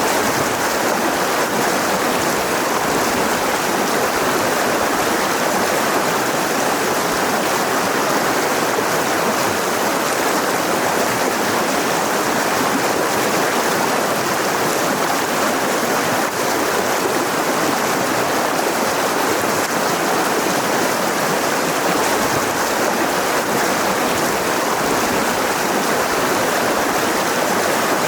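Mountain river rushing steadily over rocks, a continuous even rush of water.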